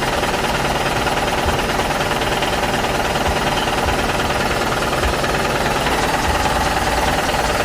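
A small motor running steadily with a fast, even mechanical rattle.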